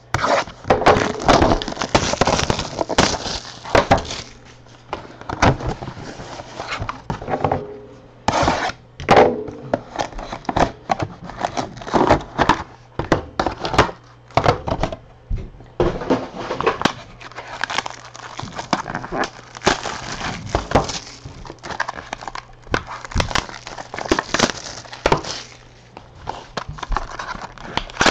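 Plastic wrapping on a sealed box of Select football trading cards being torn open and crinkled by hand: a dense stream of crackles and snaps, easing off briefly a few seconds in and again around the middle.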